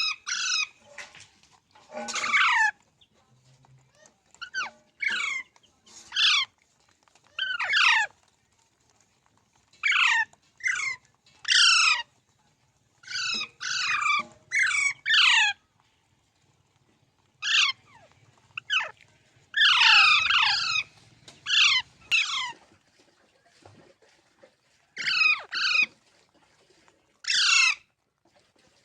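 Pet rose-ringed (ringneck) parakeet squawking: short harsh calls that fall in pitch, coming singly or in quick runs of two to four, with pauses of a second or two between.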